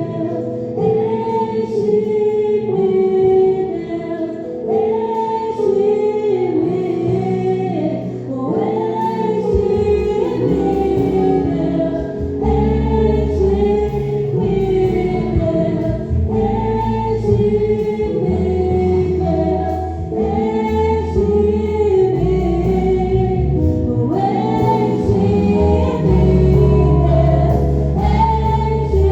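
Gospel worship song: voices singing phrase after phrase over sustained instrumental accompaniment, with deep bass notes coming in about ten seconds in.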